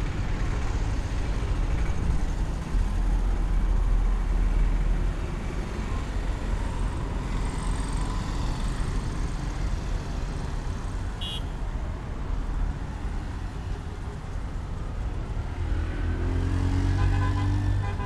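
Road traffic passing close by: a steady rumble of vehicles, with one vehicle's engine growing louder near the end.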